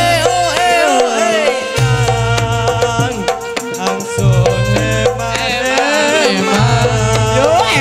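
Live Javanese Campursari band music played loud through a PA: a bending lead melody over many quick hand-drum strokes, with a deep low note returning about every two seconds.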